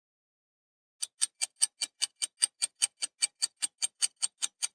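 Countdown-timer sound effect of a ticking clock, starting about a second in, with about five quick, even ticks a second.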